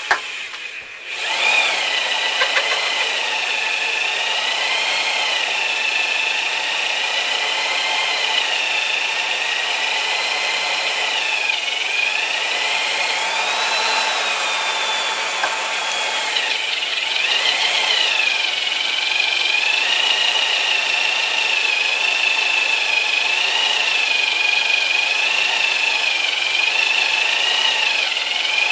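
Corded electric drill turning a 1-3/4-inch Lenox hole saw through the metal frame plate of a 6040 CNC router, with the WD-40 lubricated cut under steady load. It starts up about a second in and then gives a steady motor whine. The pitch wavers as the saw bites, and twice it briefly sags under load.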